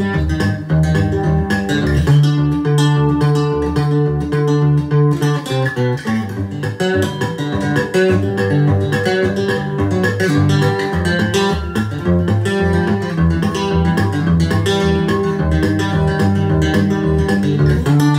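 Steel-string acoustic guitar played solo fingerstyle: quick treble melody notes over a steady, pulsing run of bass notes.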